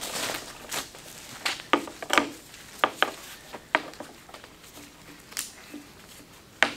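Scattered sharp clicks and light metallic knocks as a ratchet strap is fitted around a steel windshield frame and its hooks and buckle are handled, with a soft crinkle of bubble wrap under the frame.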